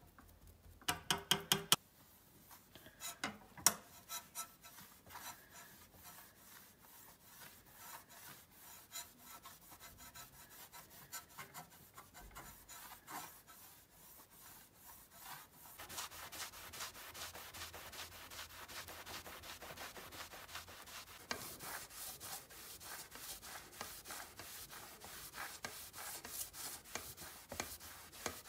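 A cloth pad rubbed over a steel sickle blade in quick back-and-forth scrubbing strokes, growing louder and denser a little past halfway.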